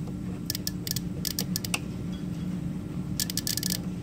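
Three short bursts of rapid small mechanical clicks over a steady low electrical hum, while a fuel pump relay circuit is being tested.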